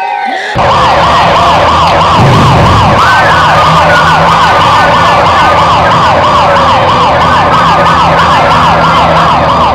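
Emergency-vehicle siren in a fast yelp, rising and falling about three times a second, with a slower wail gliding beneath it and a steady low hum. It comes in suddenly about half a second in and runs loud.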